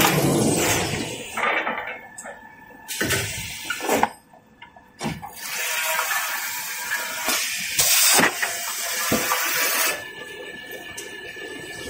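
Kitchen-towel and toilet-paper rewinding machine running: a rushing hiss that dips and swells unevenly, with a few short knocks.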